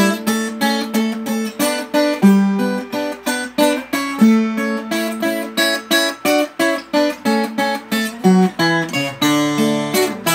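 Instrumental music: an acoustic guitar strumming chords in a steady rhythm, about three strokes a second.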